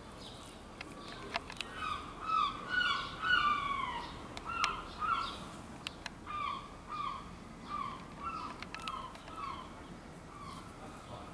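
A bird calling in a rapid series of short, falling calls, about two a second, loudest a few seconds in and growing fainter toward the end.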